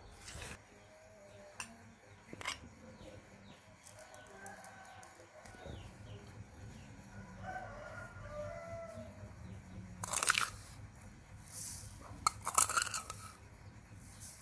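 Chickens clucking and a rooster crowing in the background, faint and wavering. Twice, about ten and twelve seconds in, there is a louder scraping rustle of bowls being handled and a metal spoon scooping seasoning granules.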